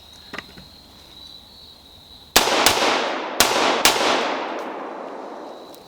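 Four rifle shots in quick succession, all within about a second and a half, followed by a long echo that fades away.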